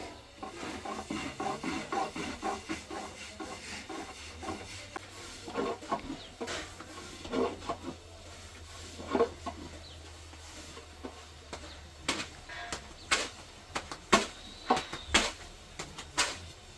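Thin wooden rolling pin clacking and knocking against a round wooden board as flatbread dough is rolled out thin, with a fast run of clacks in the first few seconds and scattered sharp knocks later, several close together near the end.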